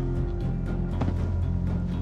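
Background music with held low notes and a steady beat.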